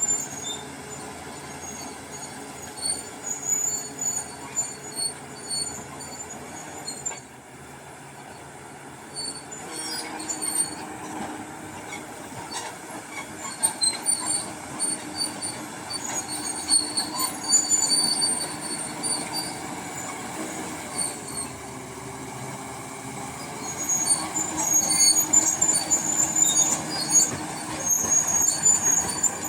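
Bulldozer working: its diesel engine runs steadily under many short, high squeals from the steel crawler tracks. It eases off about a quarter of the way through and is loudest near the end.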